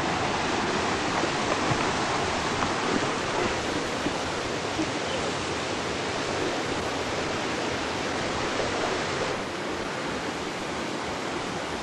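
Waterfall's steady rush of falling water, dropping slightly in level about nine seconds in.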